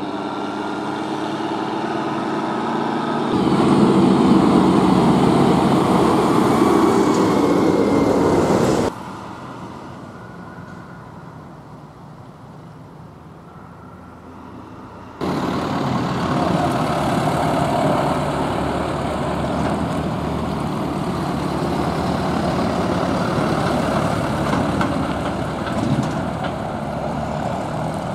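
Tractor diesel engines on the road pulling loaded trailers, led by the Renault 155.54's MWM diesel. The engine grows louder as it comes close and passes, the sound drops suddenly to a quieter engine for about six seconds, then tractors pass loudly again until the end.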